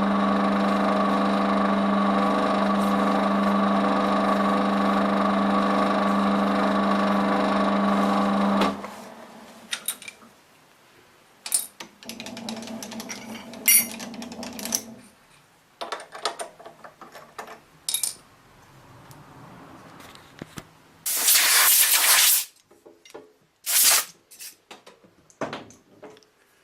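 A metalworking machine's motor runs with a steady hum, then shuts off about nine seconds in. Metal clicks and knocks of handling work and tools follow, with a loud hissing burst lasting about a second near the end.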